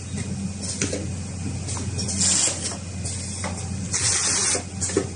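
Automatic paper-can labeling machine running: a steady low machine hum with short bursts of hiss recurring every half second to a second, two longer ones around two and four seconds in.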